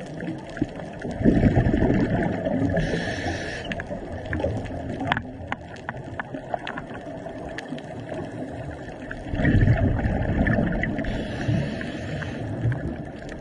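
Scuba diver breathing through a regulator underwater. Exhaled bubbles make a low gurgling rush twice, about a second in and again about nine seconds in, and each is followed by the hiss of an inhalation. Scattered sharp clicks run throughout.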